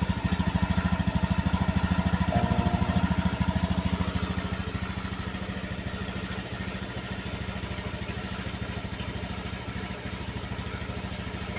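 Automatic scooter's engine running, a little louder for the first four seconds or so, then quieter and steady at idle.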